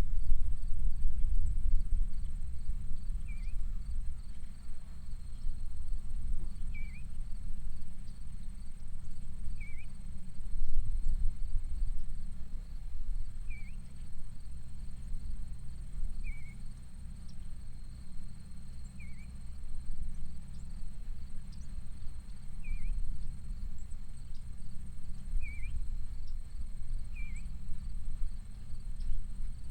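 Countryside field ambience: a low rumble throughout, with a bird giving a short chirp about every three seconds over a faint steady high-pitched tone.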